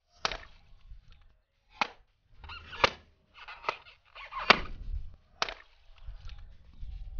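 A series of sharp balloon pops, about six of them a second or so apart, as rubber balloons are burst with a knife. Some pops trail into a brief wash of noise.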